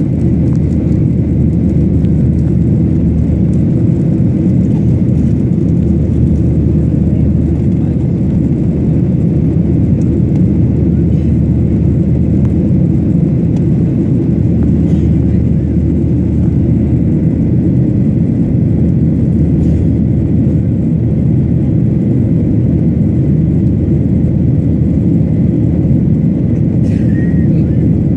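Airliner cabin noise in flight, heard from a window seat: jet engines and airflow making a loud, steady low rumble.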